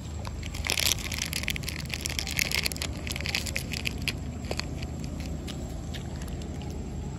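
Dry leaf litter crackling and crunching as young macaques move over it: a dense run of crackles for the first couple of seconds, then scattered crackles.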